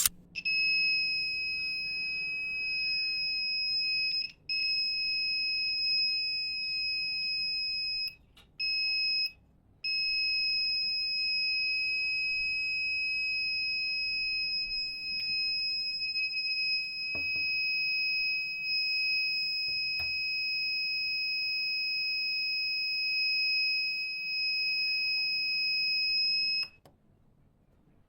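Electronic buzzer of a homemade laser security alarm sounding one steady high-pitched tone, set off by the laser beam being broken. It cuts out briefly three times in the first ten seconds and stops near the end.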